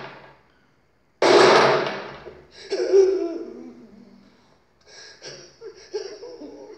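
A revolver gunshot about a second in, its report fading away over about a second. Then a person sobbing and wailing in broken, wavering cries.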